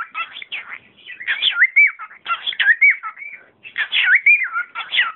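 Pet cockatiel chattering and whistling: warbling, up-and-down whistled notes mixed with scratchy gibbering, in several short phrases with brief pauses between them.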